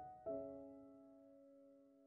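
Quiet piano background music: a chord struck about a quarter second in, left to ring and slowly fade.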